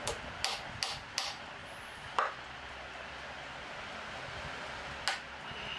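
A screwdriver working the centre screw of a distributor dust shield: sharp metal-on-metal clicks, four in quick succession in the first second, another about two seconds in and one more near the end, over a steady background hiss.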